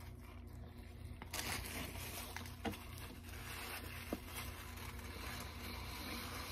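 Faint eating sounds: a man chewing a mouthful of Italian sub sandwich and wiping his mouth with a paper napkin, a soft rustling from about a second in with a few small clicks, over a low steady hum.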